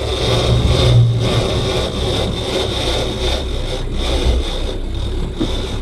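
Boat's outboard engine running with the boat under way, mixed with a rush of wind and water noise, and a steady high thin whine throughout.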